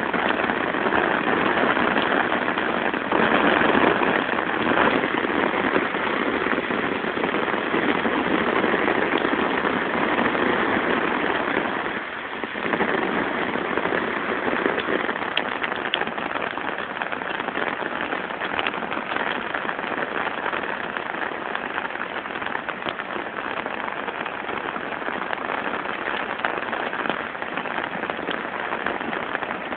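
Heavy rain pouring down: a steady hiss of water with scattered drop ticks, easing a little after a brief dip about twelve seconds in.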